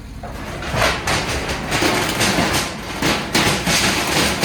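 Sheet-metal shed being pulled over by a strap from a truck: thin metal panels clattering, banging and scraping as the structure gives way, starting just under a second in.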